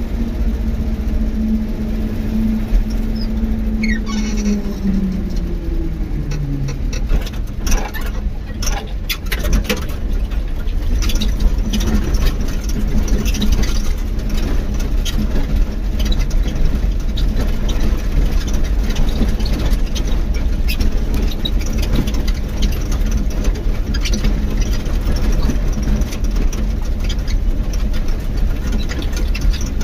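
A vehicle running over a rough dirt road bed, with a steady low rumble. Its engine note falls about four seconds in as it slows, followed by crackling and rattling clicks.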